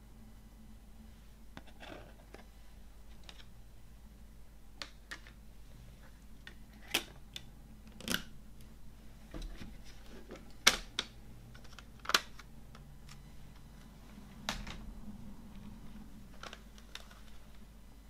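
Plastic CD jewel case being handled: the disc going onto the case's centre hub and the case being closed, heard as a series of sharp plastic clicks and taps, the loudest a little past halfway with another soon after.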